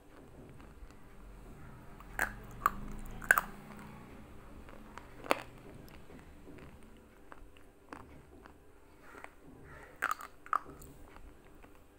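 Thick Anil brand slate pencils being bitten and chewed, with sharp crunching cracks: three close together a couple of seconds in, one about five seconds in, and two just after ten seconds, with quieter crunches between.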